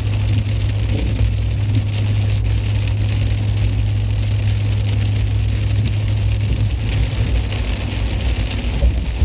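Rain falling, a steady even hiss, over a steady low hum.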